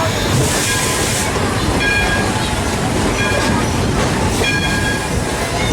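Steam train rolling along the track, heard on board: a steady, loud rumble of wheels on rails. There is a short burst of hiss about half a second in, and brief high-pitched squeals from the wheels come and go several times.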